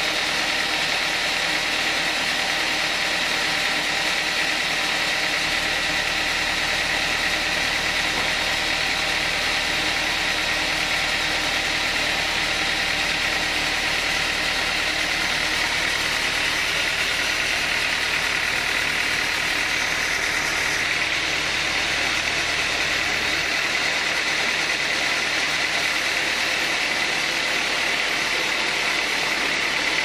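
Band sawmill running steadily with the blade turning idle, not yet cutting, as a teak log is set on the carriage. A deeper low hum joins under it from about five seconds in and drops away around twenty-three seconds.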